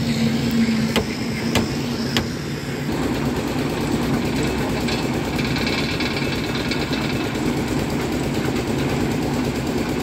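Engine of a concrete machine running steadily. Its sound turns coarser about three seconds in. Three sharp clinks come in the first couple of seconds.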